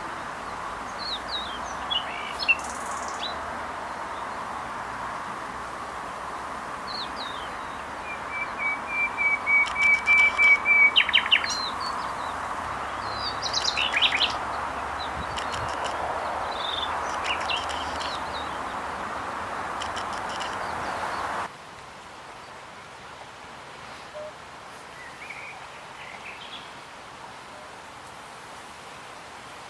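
Wild songbirds singing and chirping: short whistles, a steady trill and quick repeated notes from several birds over a steady rushing noise. About two-thirds of the way through, the rushing noise cuts off abruptly, leaving only faint, scattered chirps.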